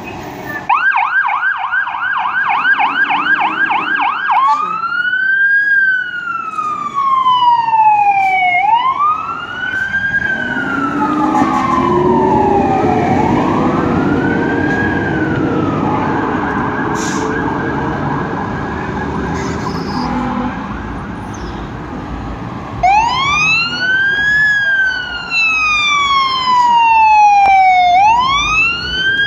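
Fire truck sirens. The first siren runs a fast yelp for a few seconds, then switches to a slow rising-and-falling wail that fades as the engine company drives away, with a truck engine climbing in pitch midway. About 23 s in, a second siren starts a loud wail as the ladder truck pulls out.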